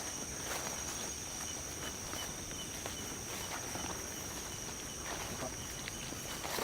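Crickets chirring steadily in a high, unbroken drone, with faint scattered rustles and steps in grass.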